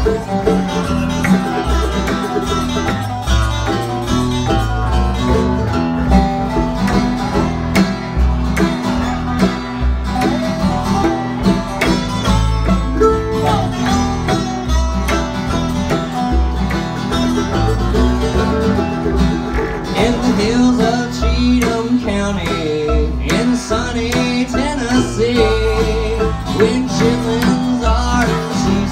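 Live bluegrass band playing acoustic string music: strummed acoustic guitar, plucked upright bass, a resonator guitar played lap-style, mandolin and fiddle, with a steady bass beat.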